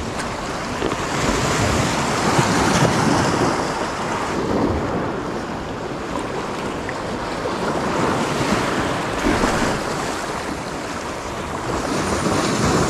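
Sea surf washing over and breaking against a rocky reef at low tide, swelling and easing every few seconds, with wind buffeting the microphone.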